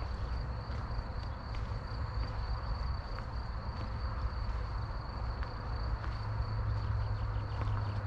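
Insects trilling steadily at one high pitch, with scattered short chirps above a low rumble.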